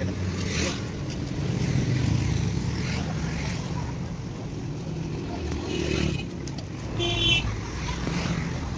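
Steady rumble of road traffic passing along a busy street, with a brief high-pitched tone about seven seconds in.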